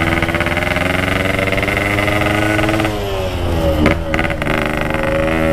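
Yamaha RX-King's 135 cc single-cylinder two-stroke engine running on the move at steady revs. The revs drop about three seconds in, and it keeps running lower.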